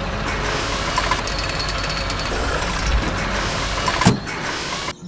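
Loud, steady racket of a heavy machine drilling, with a sharp knock near the end before it cuts off abruptly.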